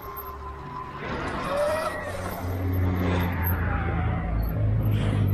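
Sur-Ron electric dirt bike riding, its motor whine shifting in pitch with speed, over a steady low vehicle hum that grows louder about halfway through.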